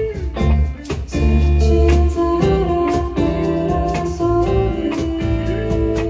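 Live band playing an acoustic arrangement of a pop-rock song: keyboard chords and guitar over a steady beat, with a melody line moving above them.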